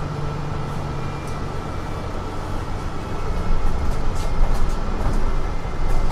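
Mercedes-Benz Citaro C2 city bus running with a steady low engine rumble that grows louder about halfway through as it picks up power.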